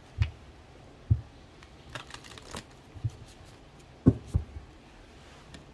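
Deck of oracle cards being shuffled by hand: a series of short, irregular taps and flicks of the cards, the loudest a pair about four seconds in.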